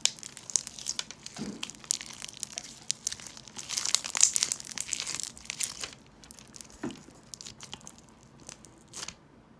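Crunchy slime being squeezed and kneaded by hand, crackling and popping in quick, dense clicks, which thin out to a few scattered pops about six seconds in.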